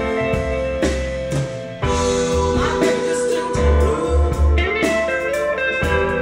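Blues music with guitar, bass and drums, played through Focal Theva N1 bookshelf speakers and picked up by room microphones; an instrumental passage with no singing.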